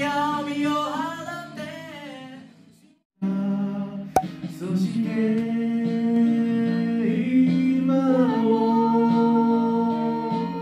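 Karaoke: a voice singing into a microphone over a backing track, fading out to a brief silence about three seconds in. After a sharp click, the backing music with long held notes returns with singing or humming along.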